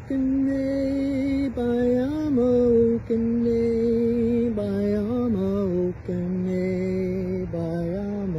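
A man chanting in long, held notes, with short slides between them and brief breath breaks, the pitch stepping lower over the phrase.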